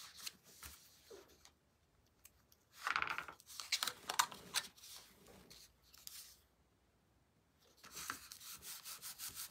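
Hands rubbing and pressing cardstock layers down onto a card, soft papery swishes with short pauses. Near the end comes a fast run of short scratchy rubs.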